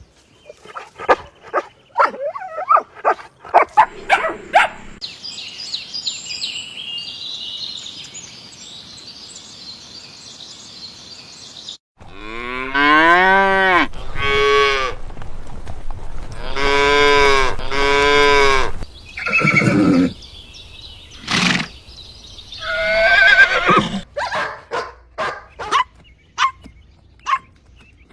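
Puppy yipping and barking in quick short bursts, then several long drawn-out animal calls that rise and fall in pitch, with a high hiss between them.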